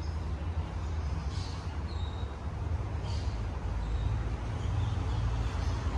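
Outdoor park ambience: a steady low rumble with faint, short bird chirps every second or so.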